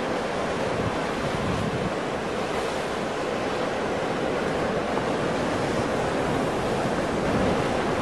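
Ocean surf: waves breaking and washing in a steady rush of noise.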